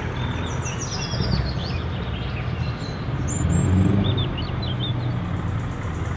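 Diesel engine of a Scania truck tractor running low and steady as the truck rolls slowly by. Short bird chirps come over it, mostly in the first four seconds.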